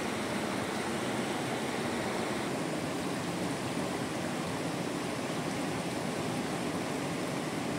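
Steady rushing noise of heavy rain, unchanging, with no separate knocks or drops standing out.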